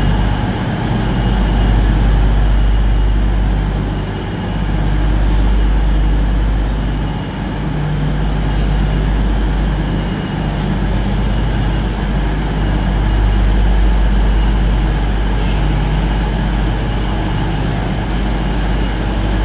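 Steady, loud low rumble and hum of a train, swelling and easing every few seconds, with a brief high hiss about eight seconds in.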